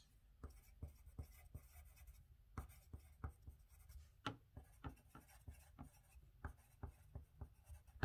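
Pencil writing on lined paper: faint scratching strokes and small taps in a quick, uneven run.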